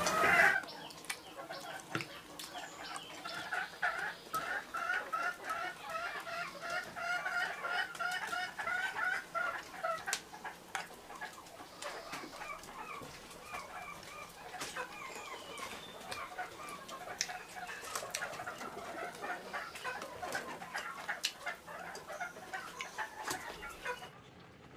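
Chickens clucking in repeated short calls, with scattered light clicks; the sound stops abruptly near the end.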